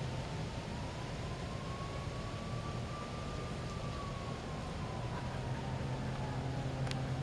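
A distant engine hums steadily, with a faint whine that slowly rises and then falls in pitch. A single brief click comes near the end.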